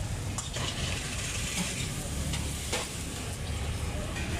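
A small knife scraping and cutting the skin off green bananas by hand, with a few sharp clicks over a steady hiss.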